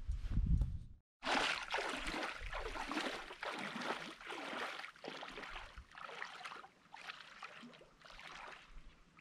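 Splashing steps of a person wading barefoot through shallow lake water, about two steps a second, growing fainter as he wades away.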